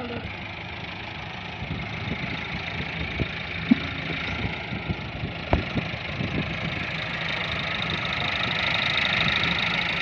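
Farm tractor's diesel engine running steadily, with a couple of sharp knocks in the middle; the sound grows louder over the last few seconds.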